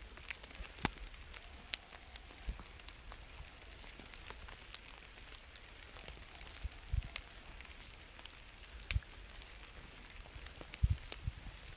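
Quiet outdoor ambience: a steady hiss with many scattered faint ticks and crackles, and three soft low thumps in the second half.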